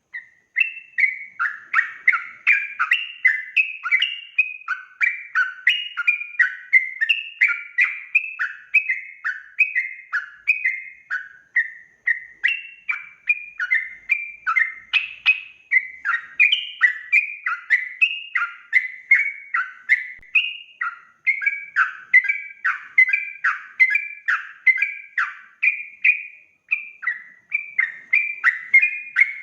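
Yellow-vented bulbul (trucuk) singing a fast, unbroken run of short warbled notes, several a second, without pause.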